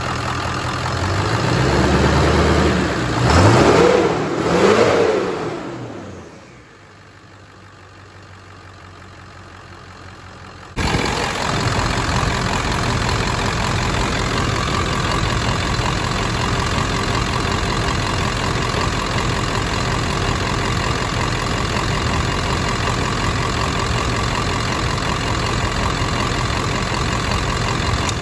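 Ford 7.3 L Power Stroke V8 turbodiesel idling, then revved twice in quick succession, each rev rising and falling away. The sound then drops low for several seconds before cutting back in abruptly to a steady idle heard close up in the open engine bay.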